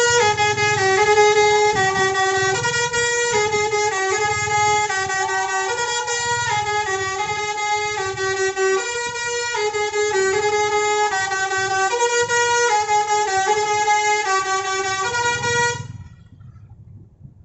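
Diamond Vacation tour bus's telolet 'basuri' musical horn playing a melody, stepping from note to note about twice a second with two tones sounding together. It stops abruptly near the end.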